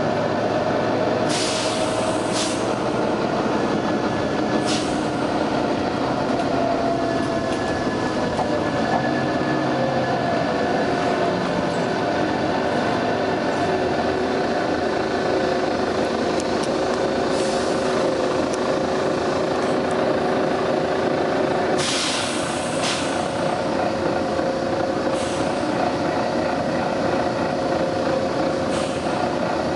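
Volvo B9TL double-decker bus running, its engine giving a steady drone that shifts in pitch for a few seconds partway through. Short sharp hisses of compressed air from the bus's air system break in about eight times, the longest about two-thirds of the way through.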